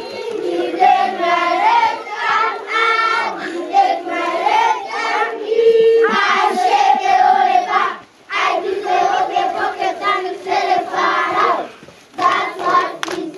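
A large group of young children singing together, many voices in short sung phrases, breaking off briefly about eight seconds in and again about twelve seconds in.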